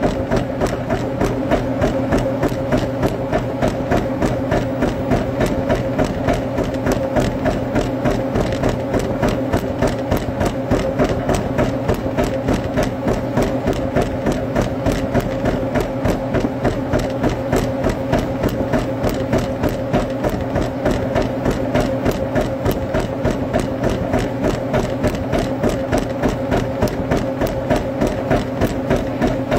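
A steady machine hum with a fast, even ticking rhythm running through it.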